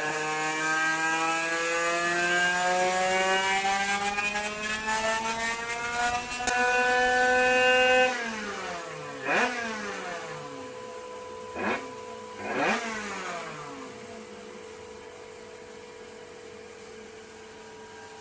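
Tuned 50cc two-stroke engine with a Bidalot WR cylinder, crankshaft and exhaust, revving up steadily through its range at full throttle in a roller-dyno pull. About eight seconds in the throttle is cut and the revs wind down, with three short throttle blips, then settle to a steady hum.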